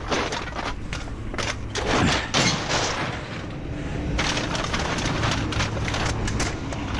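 A run of irregular knocks and clatters over a low steady hum.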